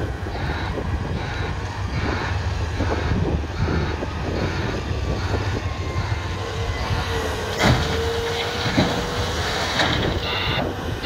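Cat 374F excavator's diesel engine and hydraulics working under load as it swings a bucket of blasted limestone over a rigid dump truck and empties it into the steel bed. Rock crashes into the bed twice, about a second apart, a little past the middle, with a short steady whine at the same time.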